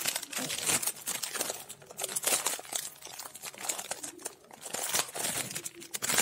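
Plastic snack packet crinkling and crackling as it is handled, in quick irregular bursts.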